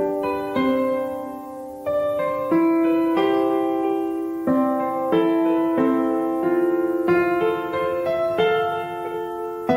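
Background music: a gentle piano piece, single notes and chords struck at an easy pace and left to ring.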